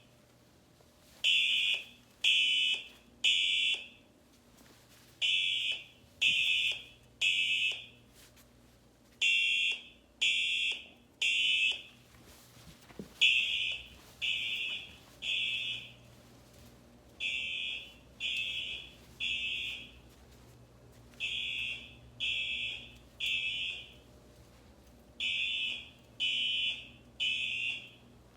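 Two electronic fire alarm horn sounds, the older Siemens horn and the Simplex TrueAlert horn, played together through a tablet's speakers. Both sound in the temporal-three pattern, three short blasts and a pause, repeating about every four seconds. Both are pitched around 3000 Hz but buzz at different rates, 90 Hz against 130 Hz, so together they sound really clashy.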